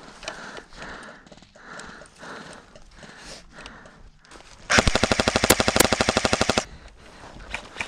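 Airsoft electric gun firing a fully automatic burst of rapid, evenly spaced shots lasting about two seconds, starting just under five seconds in, after a stretch of quieter movement noise.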